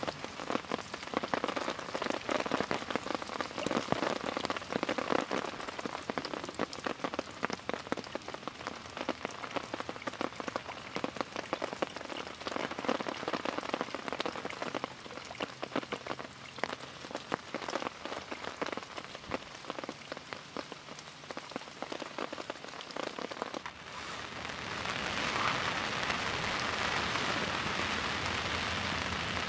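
Steady rain: a dense patter of sharp drop hits, which changes about four-fifths of the way through to a smoother, louder, even hiss of heavy rain.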